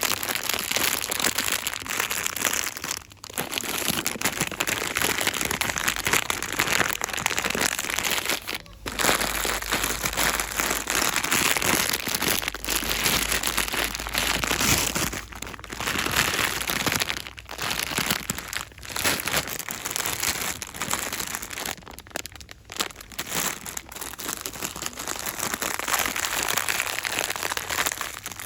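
Packaging crinkled and rustled quickly and continuously by hand for ASMR. The sound breaks off briefly a few times, about three, nine and fifteen seconds in.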